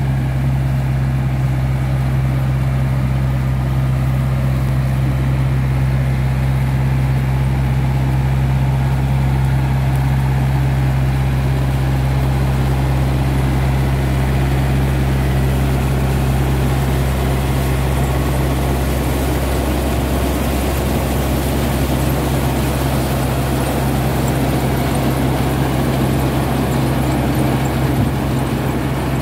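Tractor diesel engine running steadily under load while powering a Dragão recolhedora, a trailed machine that sweeps and collects material off the ground between crop rows. A constant low engine hum with a noisy mechanical wash over it that gets brighter in the second half.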